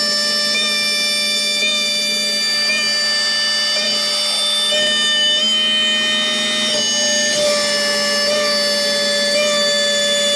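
Tormach 1100MX CNC mill's spindle and end mill cutting an aluminium plenum plate under coolant: a steady whine made of several tones, stepping slightly in pitch about once a second as the cutter changes direction.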